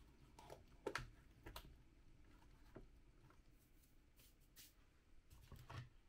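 Quiet clicks and taps from kitchen items being handled, the sharpest about a second in, as a red plastic lid is fitted onto a glass bowl of coffee grounds. Near the end comes a low knock as a stainless electric kettle is lifted from its base.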